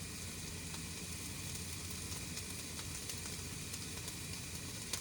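Onions frying in a pan, sizzling steadily and quietly, with a few faint ticks.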